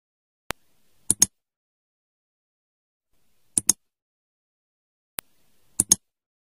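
Computer mouse-click sound effects: three sharp double clicks, about two and a half seconds apart, two of them preceded by a fainter single click, with silence between.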